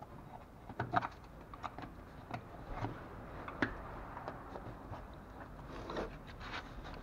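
Plastic push-in clips being pried out of a Toyota RAV4's plastic side splash shield by hand: irregular small clicks and crunchy creaks, the sharpest about a second in and again past three and a half seconds.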